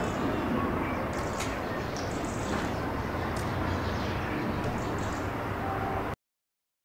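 Steady outdoor background noise with faint, short bird chirps scattered through it, cutting off suddenly into silence about six seconds in.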